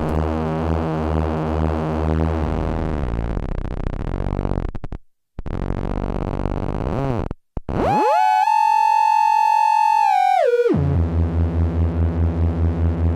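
Make Noise Maths and Behringer Abacus function generators running in cycle mode as audio-rate oscillators, giving buzzy synth tones whose pitch slides as the rise and fall knobs are turned. The sound drops out briefly twice around the middle, then jumps up to a high steady tone for a couple of seconds before sliding back down to a low buzz.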